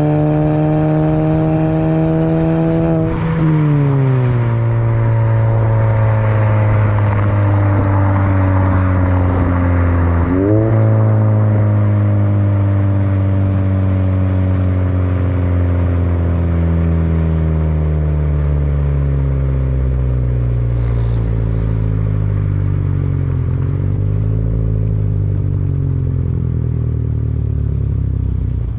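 Exhaust note of a Volkswagen Touran's 1.4 turbo petrol four-cylinder through a full-length 60 mm straight-through aftermarket exhaust, heard right at the tailpipes while driving. The revs climb, drop sharply about three seconds in, then sag slowly. They jump back up around ten seconds in and fall slowly for the rest of the time.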